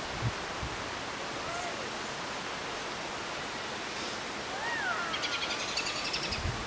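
Steady outdoor background hiss with a few faint, brief gliding whistles and a quick rapid chirping trill near the end, likely birds calling.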